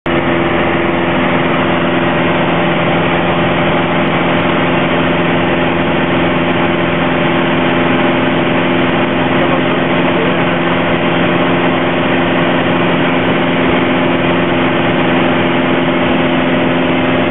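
Piper PA-28 Warrior's four-cylinder engine and propeller droning steadily in the cabin in flight, a constant hum of a few low tones over a dense rush of noise.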